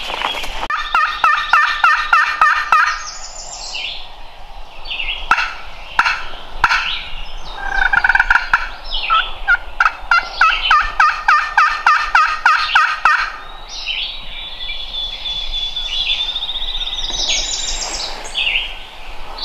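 Wild turkey calling: two long runs of evenly spaced, repeated notes, about four a second, the first near the start and the second about ten seconds in. Songbirds sing in between, with a high steady whistle near the end.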